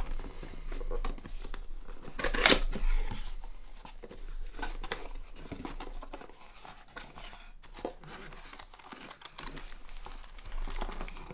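A cardboard box being opened by hand: the lid lifted and card flaps and a paper insert folded open, with irregular rustling, crinkling and small clicks of card and paper. The loudest rustle comes about two seconds in.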